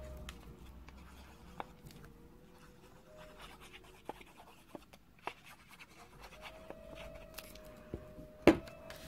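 Faint rubbing and scratching of a Tombow liquid glue applicator tip drawn along the back of a strip of patterned paper, with light ticks of paper being handled and one sharper tap near the end.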